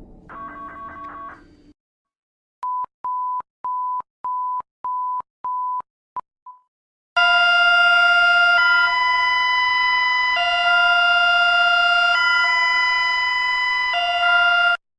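Electronic emergency-alert tones. The pulsing tone of the previous alert stops, then about six short high beeps come roughly 0.6 s apart. A loud two-tone alarm chord then sounds, alternating high and low about every two seconds, and cuts off near the end.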